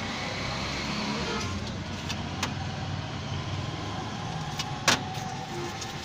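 Steady street traffic noise with a few light clicks, and one sharp metallic clink with a short ring about five seconds in, as a metal spoon strikes an open tin can.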